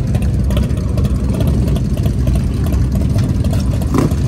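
Chopper motorcycle's engine running rough and uneven just after catching on a gasoline prime, struggling to keep going.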